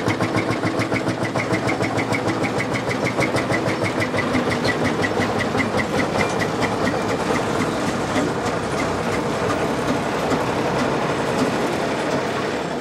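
The International Harvester 3588's DT-466B six-cylinder turbo diesel running at low revs, with an even, steady pulsing beat.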